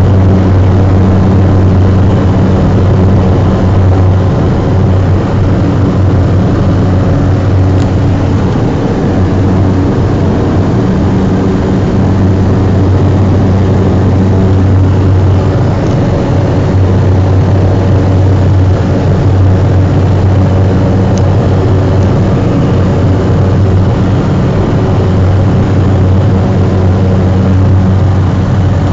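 Cessna 208B Grand Caravan's single PT6A turboprop and propeller at takeoff and climb power, heard inside the cockpit: a loud, steady drone with a deep hum.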